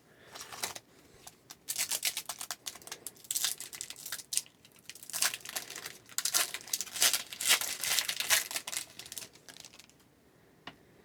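Hockey card pack wrapper crinkling and tearing as it is opened by hand, with the cards handled; it goes quiet near the end.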